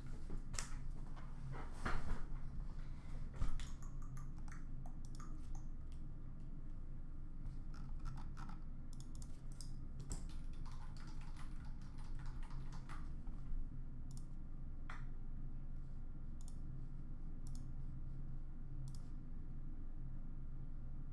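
Computer keyboard typing and mouse clicks, irregular and denser in the first few seconds, then sparser. A steady low hum runs underneath.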